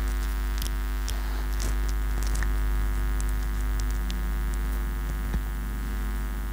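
Steady electrical mains hum with a buzzy ladder of even overtones, under soft, uneven scuffs of a duster being wiped across a whiteboard.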